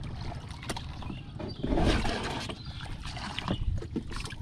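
Water lapping and splashing against a small wooden boat, with wind buffeting the microphone and scattered knocks of wood. A louder wash of water comes about two seconds in.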